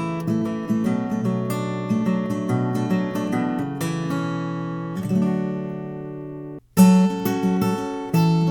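Martin 00-28 Modern Deluxe acoustic guitar played alone, picked notes and chords. One chord rings out and fades, then the sound cuts off briefly about six and a half seconds in. A loud chord follows and the playing goes on.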